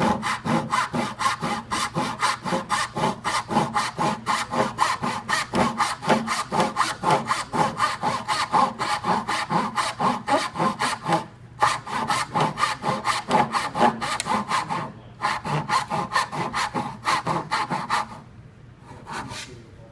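Hand saw cutting through wood to form a tenon, in quick, even back-and-forth strokes, with the saw's own weight carrying it down. The strokes pause briefly twice, stop near the end, then a few more follow.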